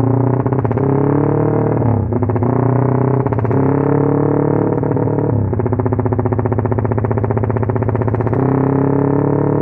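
Motorcycle engine running on a Juken 5 ECU 'helicopter' setting: a rapid, even chopping stutter held under throttle, its pitch stepping to a new level about two, five and eight seconds in.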